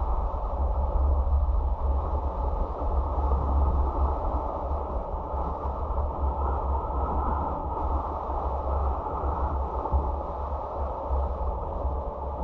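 Steady, muffled wind and road rumble of a car driving, picked up by its dashcam microphone.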